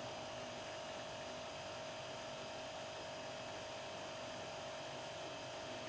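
Steady electrical hum: one constant tone over a faint, even hiss.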